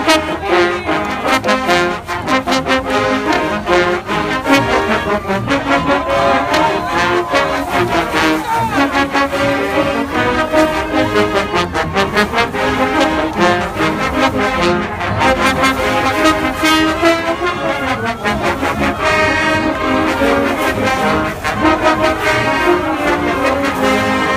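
Marching band playing a brass tune, with trombones and trumpets over a steady drum beat.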